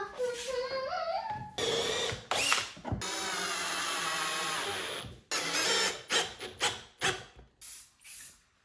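Power drill run in bursts: the motor spins up with a rising pitch, runs steadily for about two seconds, then gives several short trigger pulses that fade toward the end.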